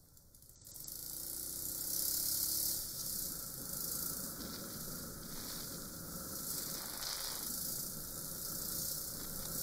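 Riding noise from a Suzuki Grasstracker Big Boy motorcycle: a steady rush of wind hiss over the dashcam microphone with the engine running underneath. It swells about a second in, and a faint rising engine note follows as the bike picks up speed.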